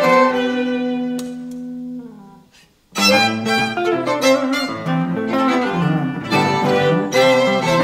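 Live instrumental music from violins and cello with electric guitar. A held chord dies away about two seconds in, there is a moment of near silence, then the ensemble comes back in suddenly with fast, busy playing.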